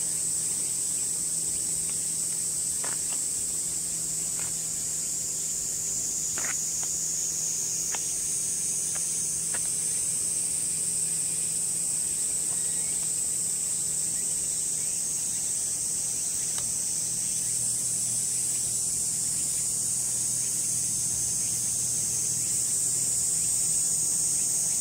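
A steady, high-pitched chorus of insects droning without a break, with a faint low hum beneath it and a few soft ticks.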